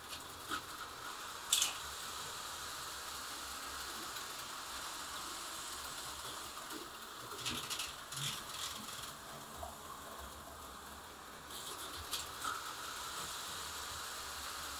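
HO-scale slot cars running laps on plastic track: a steady mechanical whirring from the small motors and pickups, with a few sharp clicks about a second and a half in, a cluster around the middle, and a couple more near the end.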